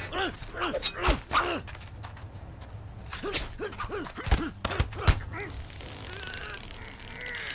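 Hand-to-hand fight: punches and blows land in quick flurries while the fighters grunt with effort. There is one flurry in about the first second and a half and another from about 3 to 5 seconds in, with a quieter stretch after it.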